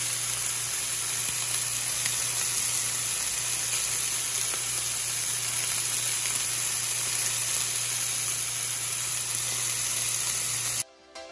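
Chicken wings frying in a nonstick frying pan: a steady sizzle that cuts off suddenly near the end.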